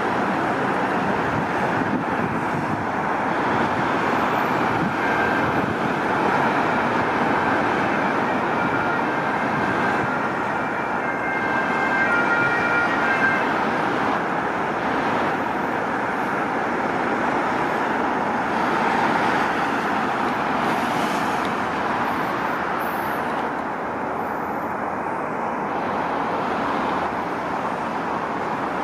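Steady noise of dense motorway traffic. A fire-brigade ambulance's two-note siren is faintly heard over it from about five seconds in until about halfway through.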